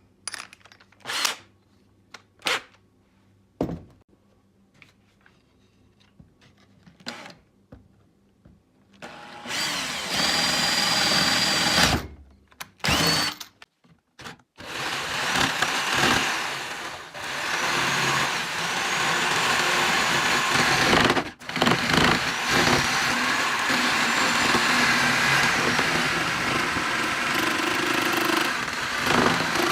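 A few scattered knocks and clicks of tools being handled, then an electric power tool running loud and steady in stretches: about three seconds, a short burst, then most of the rest with one brief stop, its high whine wavering slightly.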